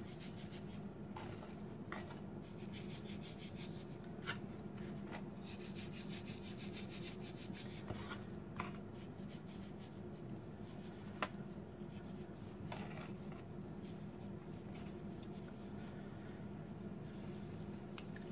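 Faint rubbing and rustling of hands on a small paper sweetener packet and on raw salmon pieces on a plastic cutting board as the sweetener is shaken over the fish, with a few light taps, over a steady low hum.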